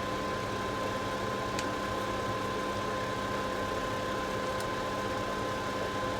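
A steady machine hum with a constant whine running evenly, with a couple of faint ticks.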